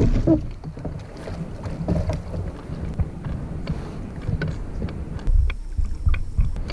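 Water splashing and the plastic hull of a sit-on-top kayak knocking as a paddler climbs back aboard from the river. The loudest splash comes right at the start, with scattered knocks after and two louder ones near the end.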